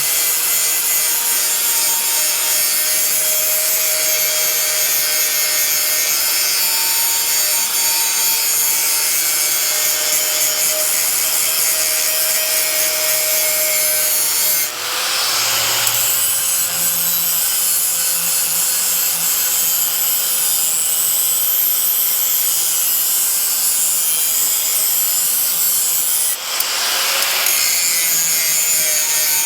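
Power grinder grinding the edge of a steel mower blade: a steady, loud grinding hiss over the motor's whine, dipping briefly twice, about halfway through and near the end.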